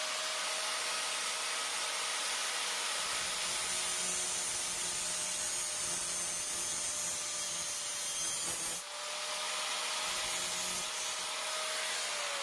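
Handheld electric angle grinder running at full speed with a steady high whine, its disc grinding through a small metal piece of a rim lock that is being cut to length, with a harsh grinding hiss. The grinding dips briefly about nine seconds in, and right at the end the motor starts to wind down.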